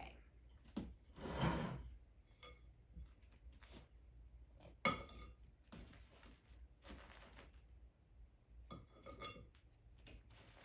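Metal hand trowel scooping compost and tipping it into a terracotta planter around plastic pots: a string of separate scrapes with light clinks of metal against pot, the sharpest about five seconds in.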